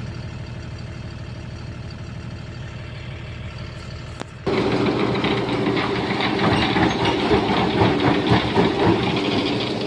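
Heavy diesel engine running steadily. About four and a half seconds in, the sound jumps abruptly louder and rougher, with more rattle.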